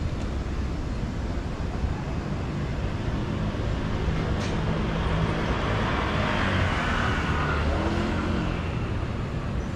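Street traffic: a steady rumble of cars on the road, swelling as a vehicle passes about five to eight seconds in.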